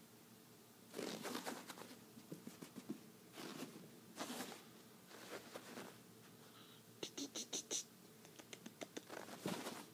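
Pet prairie dog's claws scrabbling and scratching on a rug as it tussles with a person's hand, coming in repeated bursts of quick scratchy strokes. A run of short high squeaks comes about seven seconds in.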